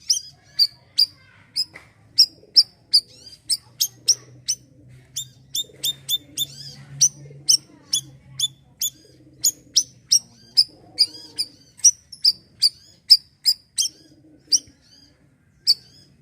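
A bayeman (siri-siri) songbird calling in a long, fast series of sharp, high chirps, about three a second, each slurring slightly downward. A faint low hum runs underneath.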